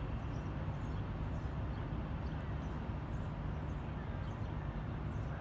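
Steady outdoor city background: an even, low rumble of distant traffic, with faint scattered high ticks.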